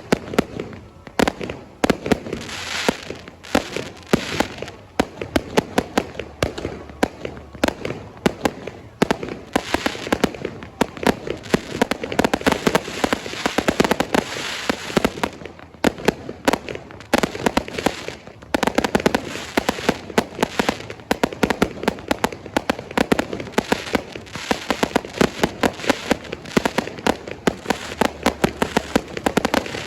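Fireworks going off: a fast, unbroken run of sharp bangs and pops with crackling between them.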